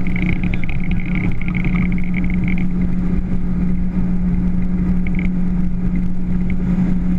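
Motorboat engine running under way, a steady drone holding one pitch with a higher whine above it.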